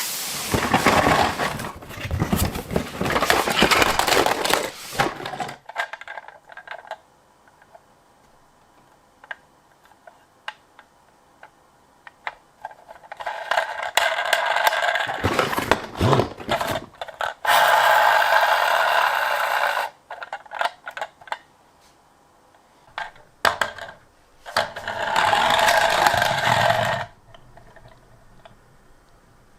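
Toy minicars clattering and scraping against each other and a hard surface as they are handled. The noise comes in several loud bursts, with quieter stretches of small clicks in between.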